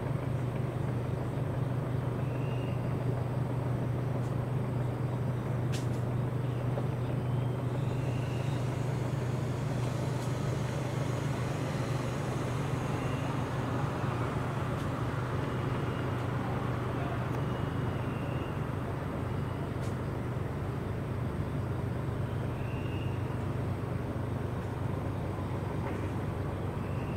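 Steady low hum of outdoor town ambience from a high vantage point, with faint short chirps every few seconds.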